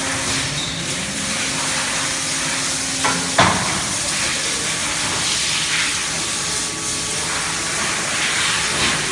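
Factory noise from a polyurethane foam moulding line: a steady hiss with a low hum under it. About three seconds in come two knocks, the second louder, and the hum stops with it.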